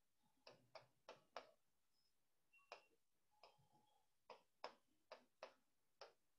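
Near silence broken by about ten faint, sharp clicks at uneven intervals.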